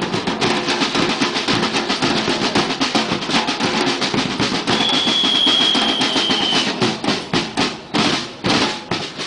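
A drum band of snare drums and a bombo bass drum playing a fast, dense beat. A steady high tone sounds for about two seconds midway, and near the end the drumming breaks into a few spaced strokes and stops.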